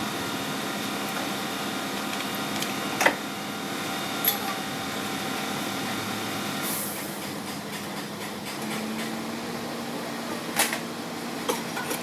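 A steady mechanical hum made of several fixed tones; most of the tones drop away a little past halfway while a low hum carries on. A few sharp clicks come through it.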